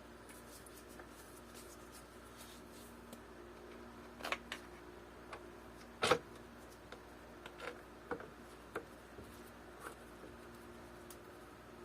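A few scattered small clicks and knocks, the loudest about six seconds in, over a faint steady hum: bike-kit hardware and parts being handled while a bolt is fitted.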